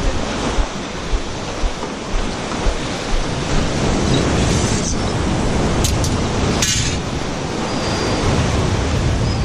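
Ocean surf washing against a rock jetty in a steady rush of noise, with a couple of brief clicks around the middle.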